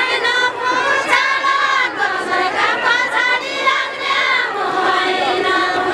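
Women's voices singing a deuda, the Far-Western Nepali folk song sung in a line or circle, together in long held melodic lines, with crowd noise behind.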